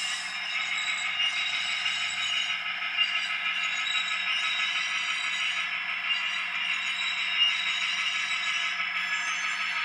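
HO scale model diesel locomotive slowly shoving a string of covered hopper cars along the track: a steady motor whine with the wheels rattling and scraping on the rails, and a couple of sharper clicks.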